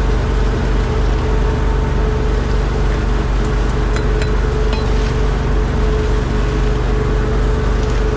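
Boat engine running steadily at an even speed, a constant drone with a hum, and a few faint ticks about three to five seconds in.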